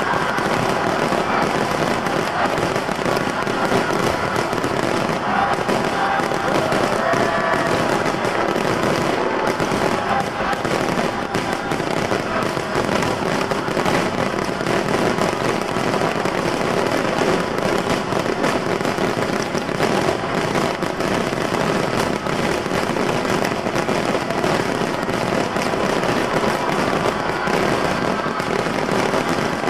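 Fireworks display going off continuously: a dense run of crackling and popping bangs, with people's voices under it.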